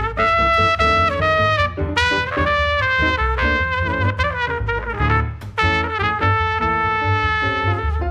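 Jazz trio of trumpet, plucked upright double bass and piano playing a swing tune, the trumpet carrying the melody in long held notes over the bass line and piano.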